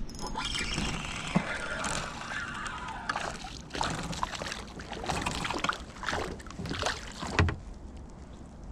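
Water sloshing and splashing around a kayak in uneven swishes, with a few sharp knocks against the boat.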